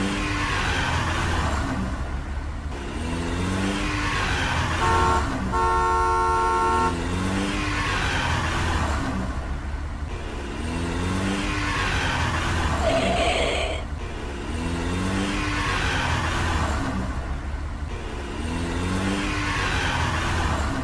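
Car engine sound effect revving in rising sweeps that repeat every two to three seconds, like a looped track. About five seconds in, a car horn honks once briefly, then once for longer.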